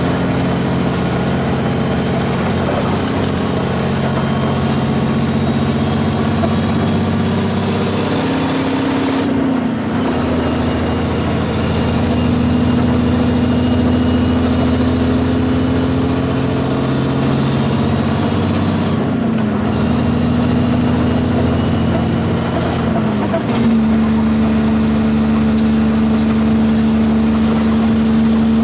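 Heavy truck engine pulling under load. Its pitch climbs steadily, then drops sharply at each upshift, three times: about a third of the way in, about two-thirds in, and again a few seconds later.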